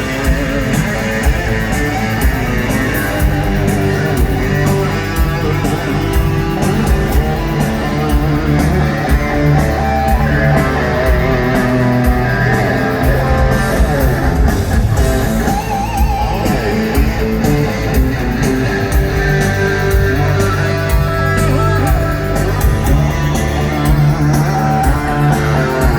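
Rock band playing live in an instrumental passage without vocals, electric guitar strumming over bass and drums at a steady loud level.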